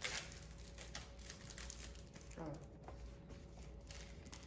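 Faint handling noises: small clicks and light plastic crinkling as hands work pink plastic candy molds and plastic bags on a table.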